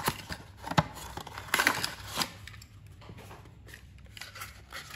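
Small cardboard toy-car box being opened: the end flap is pulled open and the inner cardboard tray slid out, with scraping and crinkling of card and plastic window. The handling is busiest in the first couple of seconds, with sharp clicks, then quieter rustling.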